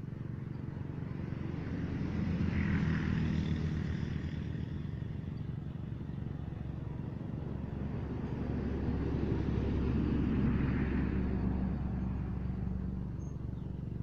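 Steady engine hum that swells louder twice, about three seconds in and again around ten seconds, then eases off each time, as motor vehicles pass.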